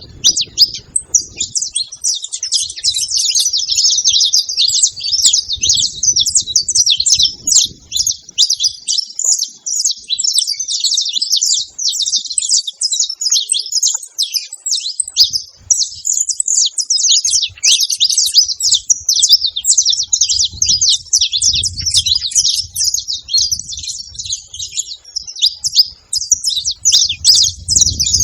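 Saffron finch (canário-da-terra) chirping rapidly and without pause, high-pitched notes crowding one after another.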